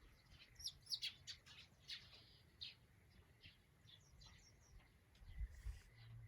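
Small birds chirping faintly: a quick run of short, high chirps in the first few seconds, then scattered single chirps.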